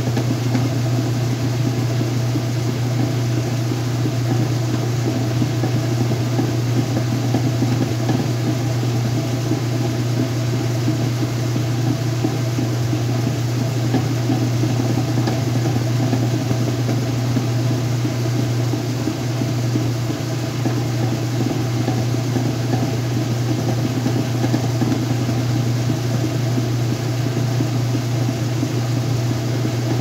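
Whirlpool top-load washing machine spinning its basket: the motor and drive give a steady hum, with a constant whir over it.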